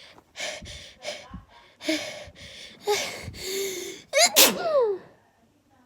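A woman's sneezing fit: a string of short, catching gasps that build for about four seconds, then one loud sneeze that falls away in pitch.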